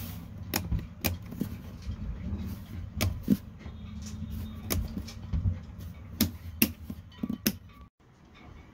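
Toggle switches on a 12-volt DC breaker panel being flipped one after another: about ten sharp clicks, over a steady low hum.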